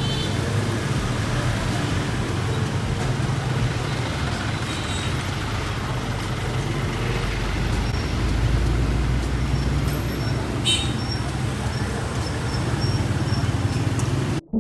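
Steady street traffic noise, engines running continuously with a low rumble; it cuts off suddenly near the end.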